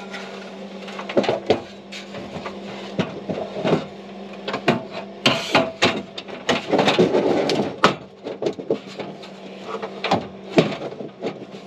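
A slatted folding camp table being unfolded and set up by hand: irregular clatter, knocks and clicks of the slats and legs, with a stretch of scraping in the middle, over a steady low hum.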